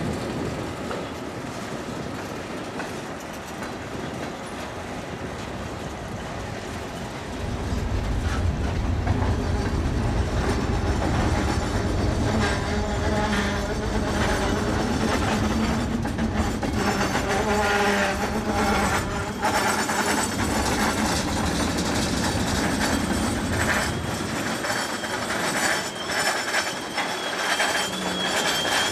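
Freight cars rolling past, wheels clicking over rail joints. A heavier rumble sets in about a quarter of the way through, and from about the middle the wheels squeal with several high steady tones.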